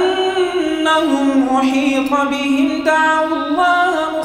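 A man reciting the Quran aloud in a melodic chant, drawing out long held notes that step up and down in pitch without a pause for breath.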